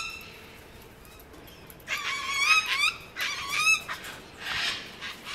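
Sulphur-crested cockatoos squawking: two harsh, wavering calls about two and three seconds in, then a rougher screech near the end.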